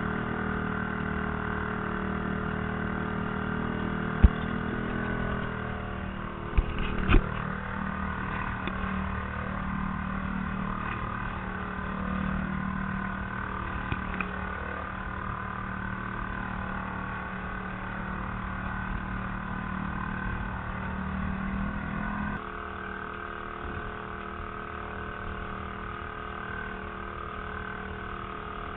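Small outboard motor running steadily, pushing the trimaran along under motor and sail, with a few sharp knocks about four and seven seconds in. The engine's sound drops and changes abruptly about 22 seconds in.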